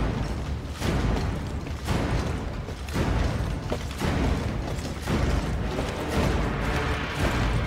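Music with heavy, booming low hits about once a second over a dense, continuous backing.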